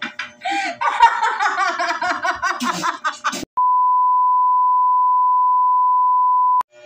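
A person's voice for about three seconds, cut off suddenly by a steady single-pitch beep. The beep is the test tone played with TV colour bars, held for about three seconds and stopping just before the end.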